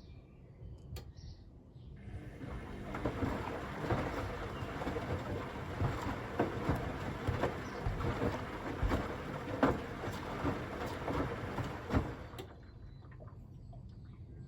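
Washing machine drum tumbling a load of watermelons in water: sloshing with frequent knocks of the fruit against the drum. It starts abruptly about two seconds in and cuts off about two seconds before the end, leaving faint background ambience.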